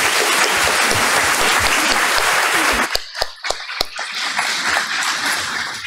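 Audience applauding: dense clapping for about three seconds, then thinning out to scattered individual claps.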